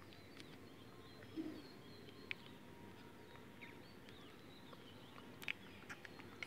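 Rabbit nibbling at a twig and a plastic mesh cage: a few faint sharp clicks and a soft knock about a second and a half in, over a quiet background with faint high chirping.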